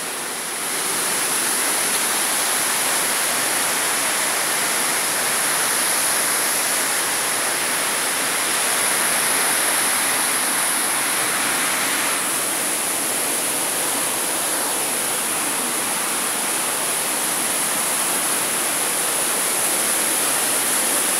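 Waterfall pouring down a sandstone cliff into a pool in a rocky gorge: a steady rush of falling water.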